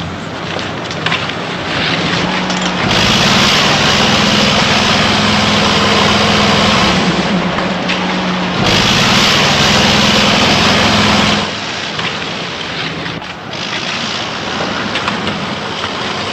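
A motor vehicle's engine running with a steady low hum and a loud noisy rush, swelling for about eight seconds in the middle, then easing off.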